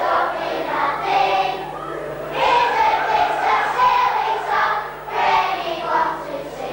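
A group of children singing together, with some notes held, over a faint steady low hum.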